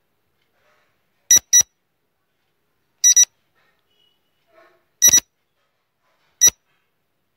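Quiz countdown timer beeping: short, high electronic beeps at a steady pace, about one every second and three-quarters. The first three are double beeps and the last is a single beep.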